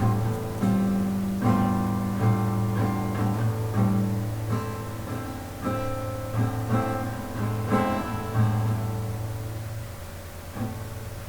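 Music played on acoustic guitar: plucked and strummed notes over a low bass line, growing softer near the end.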